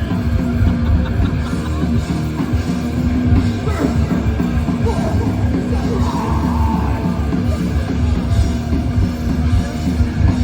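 Death metal band playing live at full volume, a steady wall of loud band sound.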